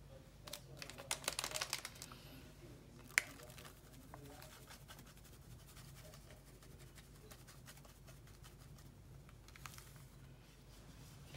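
Foil sachet of coconut cream powder crinkling as it is handled, in a crackly burst of about a second and a half near the start, with one sharp click about three seconds in and a few faint crinkles near the end.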